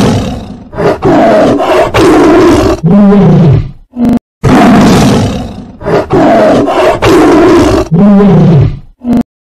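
A big cat roaring and snarling in a run of loud roars. The same run plays twice, each time closing with a longer roar that rises and then falls in pitch.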